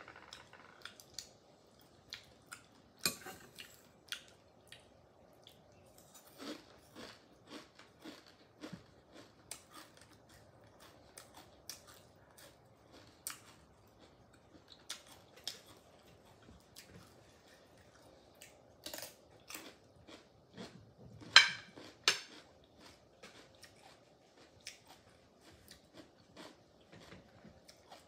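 Close-up eating sounds: a person chewing steamed oysters, with a metal spoon and oyster shells clicking and knocking against a glass plate. Scattered short clicks throughout, the loudest two knocks about three-quarters of the way through.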